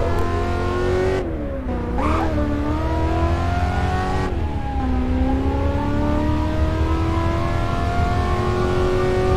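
Car engine and drivetrain whine under acceleration, with a reverberant sound-effect treatment. The pitch climbs slowly, drops sharply about a second in and again about four seconds in as if shifting gear, then keeps rising over a heavy low rumble.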